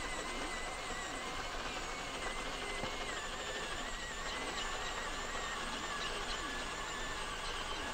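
Electric pencil sharpener whirring steadily with a pencil held in it: a continuous motor whine whose pitch wavers a little, over a repeating grinding.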